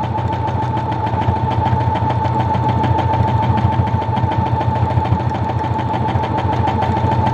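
Brother XR9550 computerized sewing machine running steadily at speed on a decorative stitch while the quilt sandwich is moved freely under the needle: a steady motor whine with rapid, even clicking of the needle.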